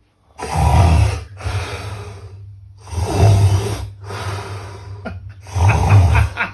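A man snoring loudly: three deep snores about every two and a half seconds, each followed by a quieter breath out.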